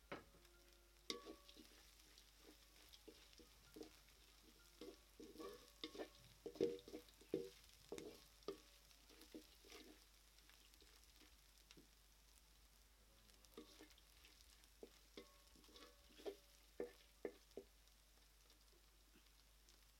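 A spoon stirring food in a cooking pan: irregular clinks and scrapes, busiest in the middle stretch and again near the end.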